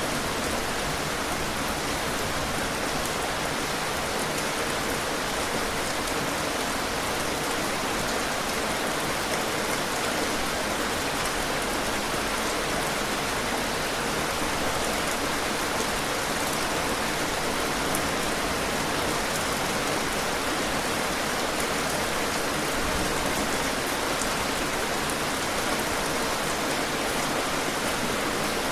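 Heavy rain falling steadily, a dense even hiss of drops on surfaces with faint scattered drop ticks.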